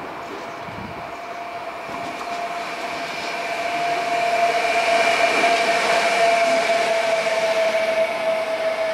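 DB Class 152 electric locomotive passing, its steady high whine and rail noise growing louder to a peak about five seconds in. The whine drops slightly in pitch as it goes by.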